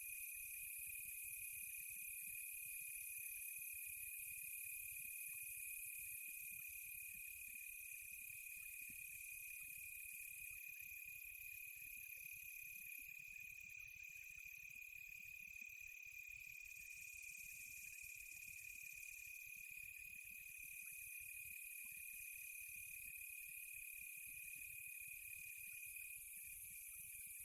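Faint, steady insect chorus: a continuous high, even trill with a fainter hiss above it, unchanging throughout.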